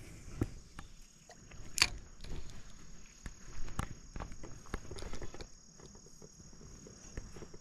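Insects chirring in a steady high-pitched drone, with scattered faint clicks and rustles and one sharper click about two seconds in.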